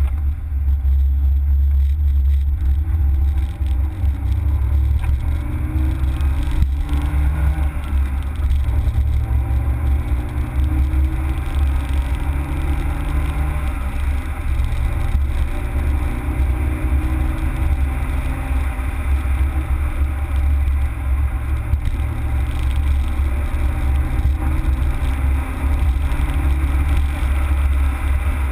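Citroën Saxo VTS's 1.6-litre 16-valve four-cylinder engine pulling hard, heard from inside the cabin over a heavy low road and cabin rumble; the engine pitch climbs in stretches and drops back several times as the car accelerates and changes gear.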